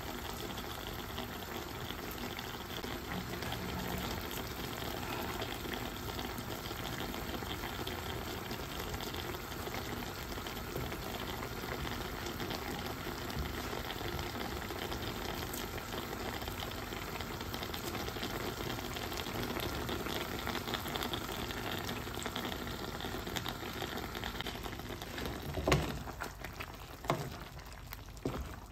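Pork steak and mushrooms simmering in soy sauce in a wok, a steady bubbling sizzle. Near the end a wooden spatula knocks against the pan two or three times as the food is stirred.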